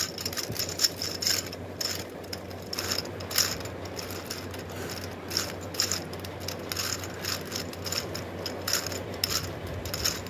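A plastic gear cube puzzle being turned rapidly by hand: a stream of irregular clicks and rattles from its meshing plastic gears and turning faces.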